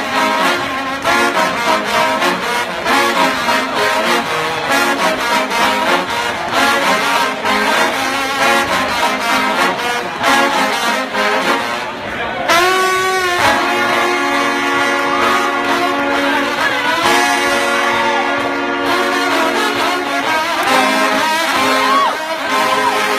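Trombone played with unusual technique: a busy run of fast-changing notes, then about halfway through a wavering note that gives way to long held tones with several pitches sounding at once.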